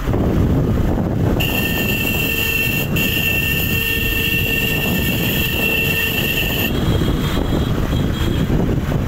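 Motorcycle riding along a rough dirt trail, heard from the rider's own bike: a steady low rumble of engine and wind buffeting on the microphone. A steady high-pitched whine comes in about a second and a half in, breaks off for a moment near three seconds, and stops near seven seconds.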